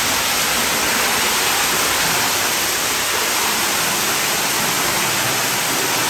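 Wall-mounted sheet-waterfall spout pouring a curtain of water into a swimming pool: a steady rush and splash of falling water.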